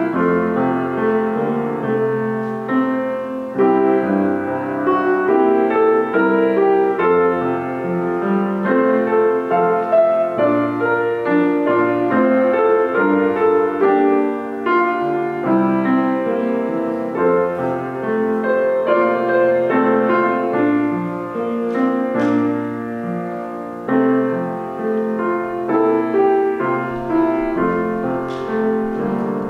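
Solo piano music, a steady run of chords and melody notes.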